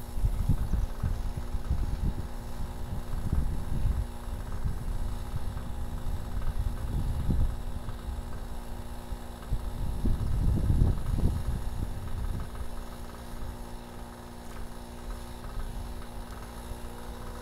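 Wind buffeting an outdoor microphone in irregular low rumbling gusts, with a faint steady hum underneath.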